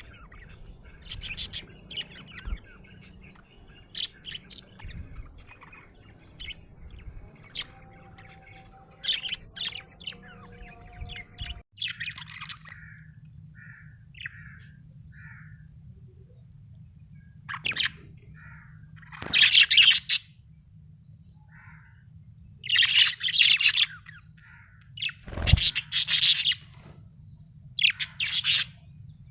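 Budgerigar chirping and chattering in short, high calls. After about twelve seconds it comes in louder bursts with gaps between them.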